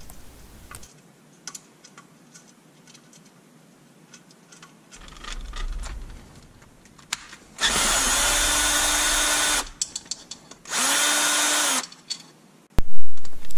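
Cordless drill spinning a long socket extension to back out the driveshaft guard bolts on a Yamaha YXZ1000 transmission case. It runs in two bursts, one of about two seconds and a shorter one of about a second, each winding up and then spinning down, with a few small tool clicks before them.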